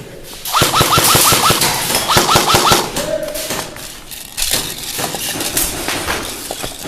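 Airsoft electric gun firing two quick bursts of about half a dozen shots each, a second or so apart, with the rapid clack of each shot.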